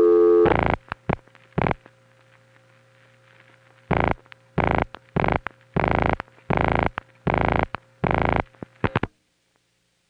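Rotary dial pulses on an analog telephone line, sped up into a harsh razzing. A few bursts come just after the start, then a run of seven evenly spaced buzzing bursts, one for each digit dialled, over a faint steady line hum. The line goes dead about nine seconds in.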